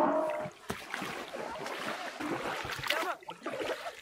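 Oars of an inflatable rowing boat dipping and splashing in the water as the boat is rowed, stroke after stroke.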